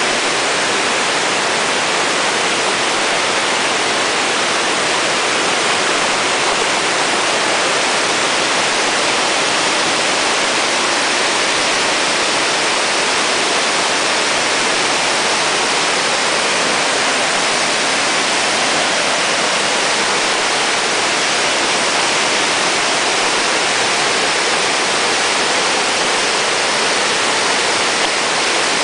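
Loud, steady rush of fast-flowing creek water, an even hiss with no breaks.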